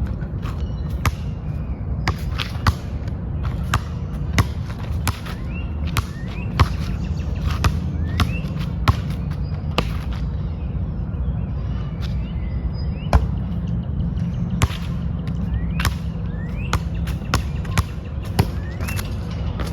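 A basketball bouncing and thudding on an outdoor court, sharp single impacts coming about once a second, over a steady low background rumble with faint short rising chirps.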